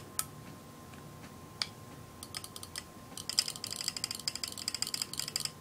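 Light plastic clicks and taps from an Empire Axe paintball marker being handled: a couple of single clicks, then from about two seconds in a fast run of clicking as fingers work its trigger and controls.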